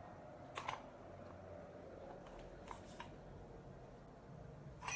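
Faint handling noises: a few light clicks and taps from small parts being handled.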